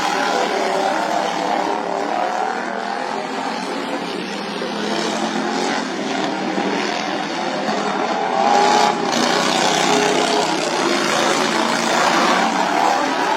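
Racing lawnmower engines running hard, several engine tones overlapping and wavering as the mowers lap. The sound swells for a moment about nine seconds in.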